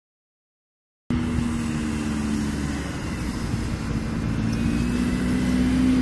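Engine of a tuned Wartburg 353 running, heard from outside the car. It starts abruptly about a second in, holds a steady pitch, and grows slowly louder as the car moves off across the snow.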